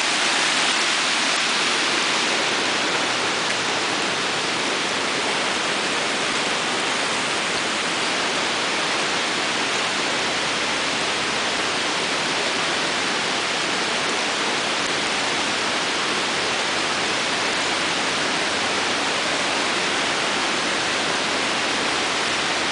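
River floodwater rushing fast across and beside a flooded boardwalk: a steady, even hiss of moving water that neither rises nor falls.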